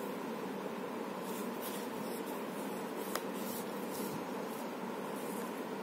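Tarot cards being fanned and slid through the hands: soft scraping of card on card in short strokes, with one small tick about three seconds in, over a steady background hiss.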